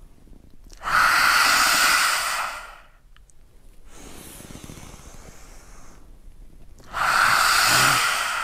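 Two forceful open-mouthed lion's breath exhales, each a loud breathy "haaa" lasting about two seconds. A much quieter inhale comes between them.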